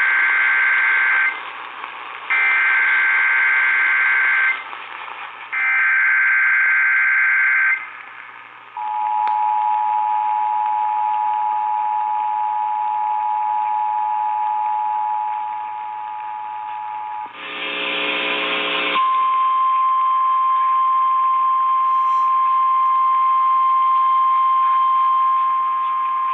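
Emergency Alert System signal received over AM radio, with hiss throughout. It opens with the end of one buzzy SAME digital header burst and two more about two seconds apart. About nine seconds in comes the two-tone EAS attention signal, held for about eight seconds, then a short loud burst of other audio, and from about nineteen seconds a single steady alert tone.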